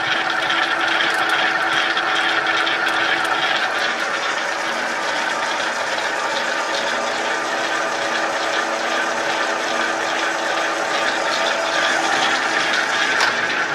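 Hobart 80-quart mixer (model 802) running in fourth, its top speed, through its gear-driven transmission. It makes a steady whine with many light ticks, and the planetary head and dough hook are turning.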